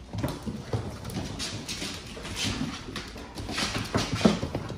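Pit bulls' paws and claws clicking and scuffling on a hardwood floor as the dogs move about, with a short vocal sound about four seconds in.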